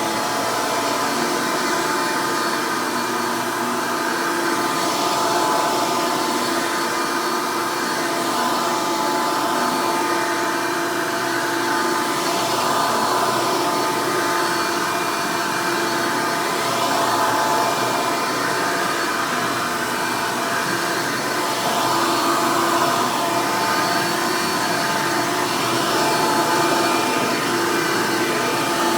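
Hoover Elite Deluxe soft-bag upright vacuum cleaner running steadily, pretty loud: a constant motor whine of several tones over a rushing hiss of air.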